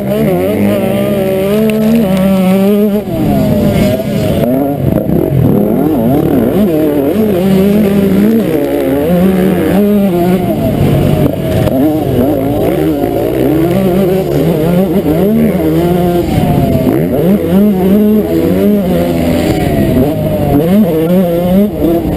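KTM 125 SX single-cylinder two-stroke motocross engine revving hard, heard from on the bike. Its pitch climbs and drops over and over with throttle and gear changes.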